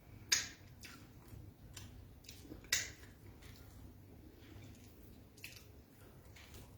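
Close-up chewing and wet mouth sounds of someone eating beans and fried plantain, with scattered soft smacks and two sharp clicks, one just after the start and one about three seconds in.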